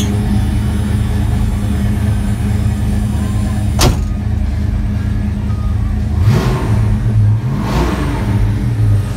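Car engine idling with a steady low rumble, then revved twice, the pitch rising and falling about six and eight seconds in. A single sharp click about four seconds in.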